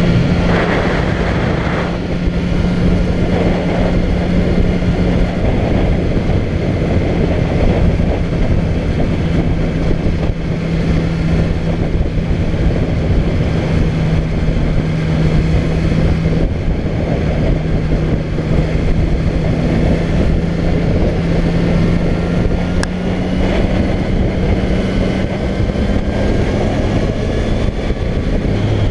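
Motorcycle engine running at a steady cruising pitch under heavy wind noise on the microphone; over the last few seconds the engine note climbs slowly as the bike speeds up.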